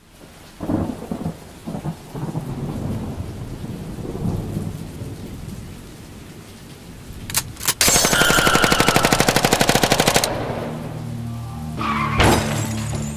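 War sound effects opening a music track: low rumbling with a rain-like hiss, then two single gunshots and a rapid machine-gun burst of about two seconds. A low synth bass line comes in after the burst.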